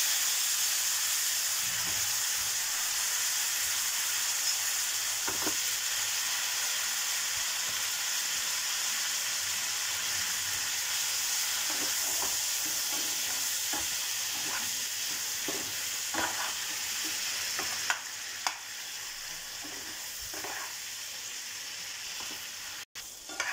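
Marinated chicken pieces sizzling in hot ghee and butter in a pan, with a steel spoon knocking and scraping against the pan now and then as they are stirred. The frying gets somewhat quieter about eighteen seconds in and cuts out for an instant near the end.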